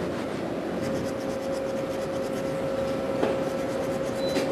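Hand file rasping in short repeated strokes on the teeth of a small right-angle (bevel) clock gear, hand-fitting it so that it meshes smoothly. A steady hum sounds underneath from about a second in.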